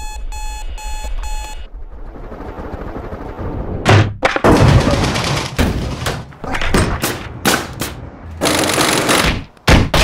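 A digital alarm clock beeps four times in quick succession. Then a tumbling rumble swells, and from about four seconds in a run of loud, irregular bangs and clatter follows, like gunfire, from a laundromat clothes dryer's drum tumbling.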